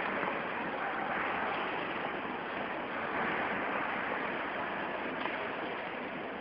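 Steady rushing hiss of a large museum hangar's background noise, picked up through a low-quality mobile phone microphone.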